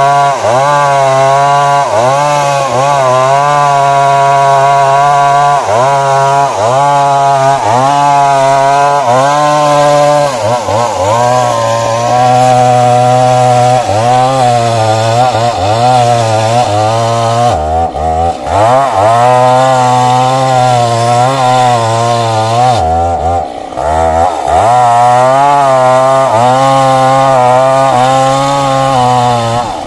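Stihl MS 382 two-stroke chainsaw running at full throttle while cutting into a big tree trunk. Its pitch dips over and over as the chain bites into the wood and then recovers. Twice, past the middle, it bogs down deeply under load before picking up speed again.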